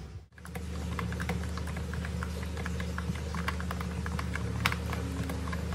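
Typing on a Bebop wireless keyboard with round, typewriter-style keycaps: a quick, irregular run of light key clicks, starting just after a brief gap. A steady low hum sits underneath.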